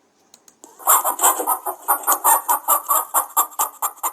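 Chicken clucking in a quick run of short clucks, starting about a second in.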